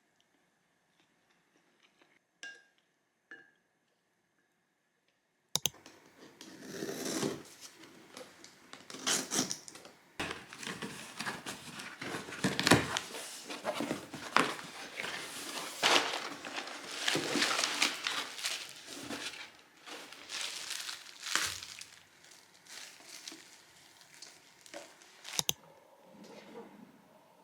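Crinkling and crumpling of a wrapping, such as paper or plastic, with sharp clicks and taps mixed in. It starts suddenly about five seconds in, after near quiet, and carries on irregularly until just before the end.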